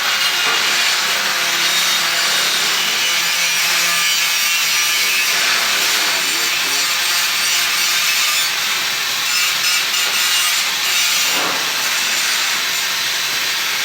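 Steady, loud, harsh hissing and rasping from metalwork, with no pauses and no clear strokes.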